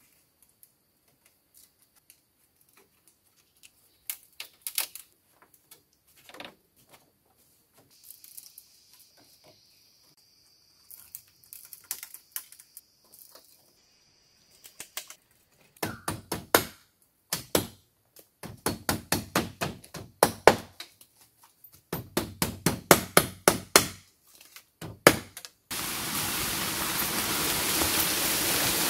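Bamboo being struck during shelter building: at first scattered light clicks and knocks, then from about sixteen seconds in, runs of quick, hard knocks, several a second, in short groups. Near the end a loud, steady rustling hiss takes over.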